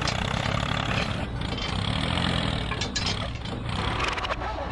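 Tractor engine running steadily with a low, even rumble.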